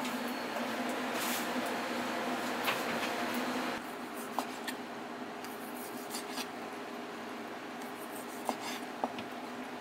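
Kitchen knife cutting boiled octopus tentacles on a plastic cutting board: soft slicing with a few sharp taps of the blade on the board, over steady background kitchen noise with a low hum that drops a little about four seconds in.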